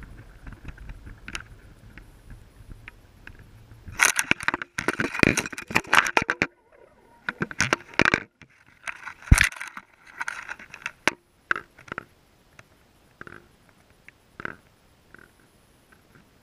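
Underwater, heard through a GoPro housing: a low rumble, then about four seconds in a run of loud scraping, knocking and crunching as the camera lands on and drags over the stony seabed. The noise eases off into scattered single clicks.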